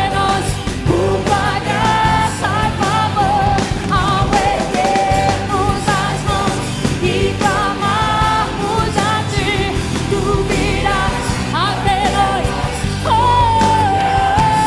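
Live worship band music: a steady drum and bass groove under a held, wavering lead melody line that slides in pitch now and then.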